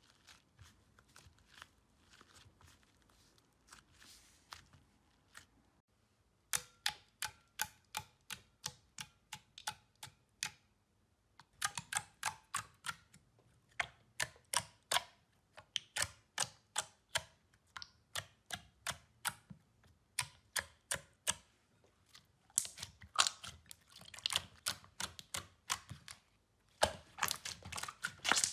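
Slime being squeezed, pressed and folded by hand: faint soft clicks at first, then from about six seconds in a run of sharp clicks, about three a second, as the slime is pressed down, pausing briefly twice and getting louder near the end.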